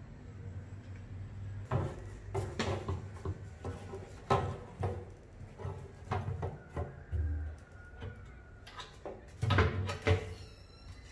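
Aluminium beer cans knocking and clinking against a glass tank as they are handled and set down inside it: a run of irregular knocks, with the loudest pair about a second before the end.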